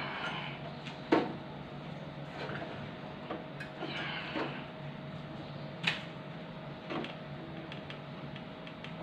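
A cloth rustling as it is handled and pulled out of a kitchen chimney's sheet-metal blower housing, with a few sharp knocks of hands against the metal housing: the loudest about a second in, others near six and seven seconds. A steady low hum runs underneath.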